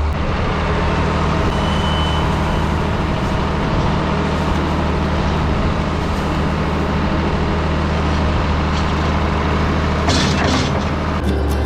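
Tractor diesel engine running steadily under load, with a brief burst of louder, higher noise about ten seconds in.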